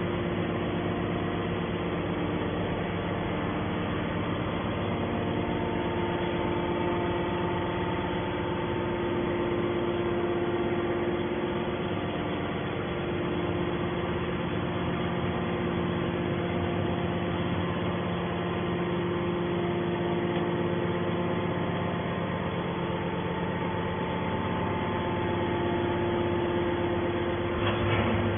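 Hydraulic scrap metal baler running: its electric motor and hydraulic pump give a steady mechanical drone with several held humming tones that shift slightly now and then.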